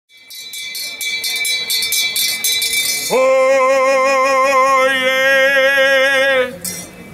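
A town crier's brass handbell rung rapidly, struck over and over with its ringing tones hanging on, for about three seconds. The bell then stops and the crier gives one long, loud held call with a wavering pitch, the traditional cry that opens a proclamation.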